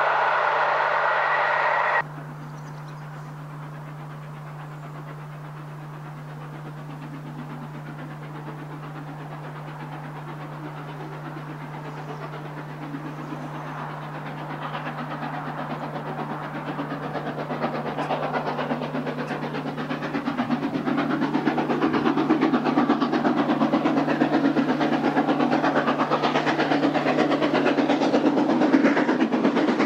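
A passing train's coaches rumble on the rails and cut off suddenly about two seconds in. Then LMS Princess Royal class Pacific 6201 Princess Elizabeth, a four-cylinder steam locomotive, approaches working its train, and the sound of its steam and wheels on the rails grows steadily louder.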